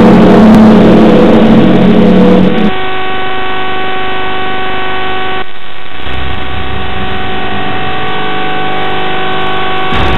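Loud, noisy rumble with low steady hums, cut off suddenly about two and a half seconds in. A single synthetic droning note with a stack of overtones follows, held steady for about seven seconds: a horror-film soundtrack drone.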